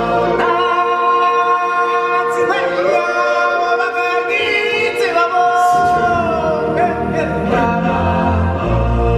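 A choir of voices singing in held, gliding lines over show music. A deep, pulsing low beat comes back in about six seconds in.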